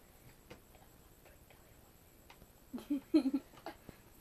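Quiet room with a few faint clicks, then a short burst of a boy's voice about three seconds in.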